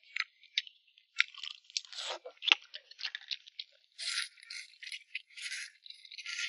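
Close-up eating sounds: rice noodles slurped and chewed, with short crisp crunches and clicks, and a few longer slurps near the middle and end.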